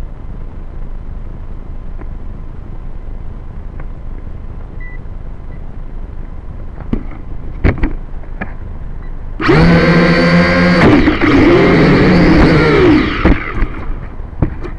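Quadcopter drone's motors and propellers spinning up for about four seconds, a loud buzzing whine that wavers in pitch, then cutting out abruptly. Before it, a low steady rumble and a few short knocks.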